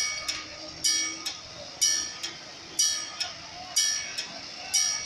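Railway level-crossing warning bell ringing on: a bright strike about once a second, each followed by a softer one.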